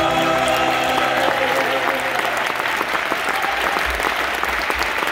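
Audience applauding: dense, steady clapping, while the song's last held chord fades out in the first moments.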